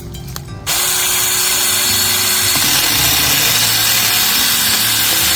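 Battery-powered SMARTSAKER mini chainsaw switching on sharply under a second in and then running steadily at full speed, its chain cutting into a bamboo stalk.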